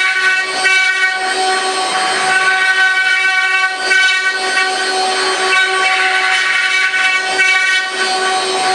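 Multi-spindle CNC wood router running: its spindles give a steady high whine with several overtones. A rushing cutting noise swells and fades every second or two as the bits carve the wood.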